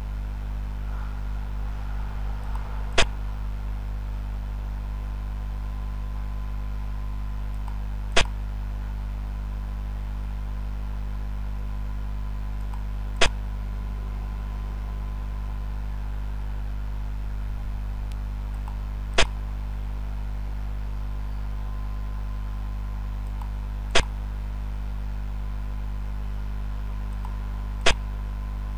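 Sharp click of a xiangqi board program placing a piece, heard six times at intervals of about five seconds, over a steady low electrical hum.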